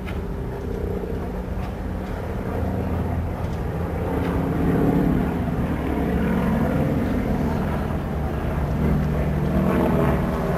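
Single-engine aerobatic biplane's piston engine and propeller running, the drone wavering up and down in pitch as it manoeuvres and growing louder about four seconds in.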